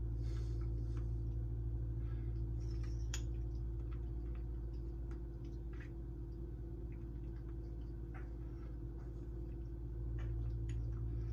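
Faint, scattered clicks of a metal spoon against a small bowl and quiet eating, over a steady low hum.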